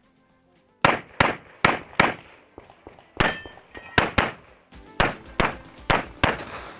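Pistol gunfire in a rapid stage run: about a dozen shots in quick pairs and short strings. One shot about three seconds in is followed by a metallic ringing.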